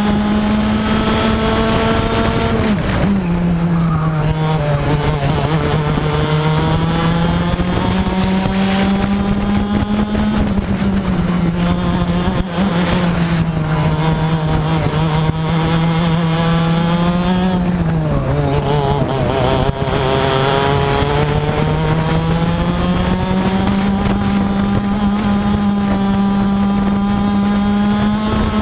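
Two-stroke racing kart engine running at high revs. Its pitch falls sharply twice, a few seconds in and again about two-thirds of the way through, and climbs back steadily each time.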